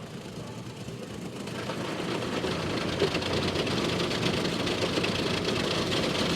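Automatic car wash machinery running around a car, heard from inside the cabin: a dense mechanical rush that swells louder about a second and a half in and then holds.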